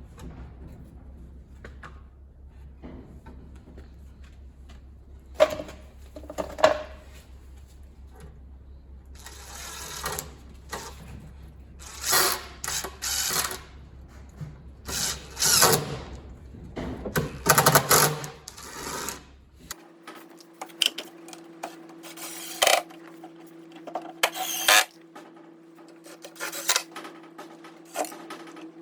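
Workshop work sounds: scattered knocks and clatter, then a run of loud bursts of scraping and rubbing, with a steady hum underneath from about two-thirds of the way in.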